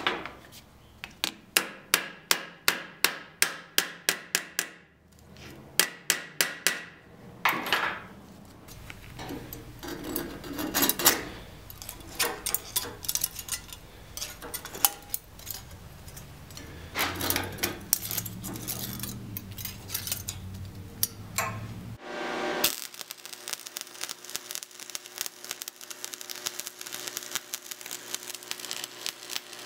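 Quick, light hammer taps on a steel billet capsule, about three a second, then knocks and clatter as locking pliers clamp it. Near the end a welding arc starts a steady crackle, tack-welding the capsule shut.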